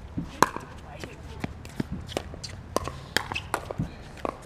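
Pickleball rally: paddles hitting a plastic pickleball and the ball bouncing on the hard court, about ten sharp pops at an uneven pace, the loudest about half a second in.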